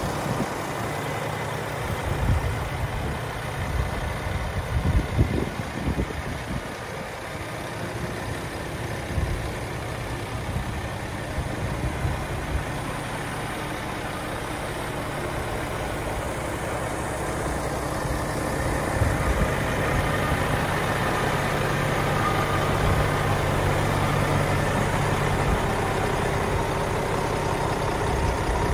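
Heavy truck diesel engine idling steadily, with irregular low thumps in the first few seconds and growing somewhat louder in the second half.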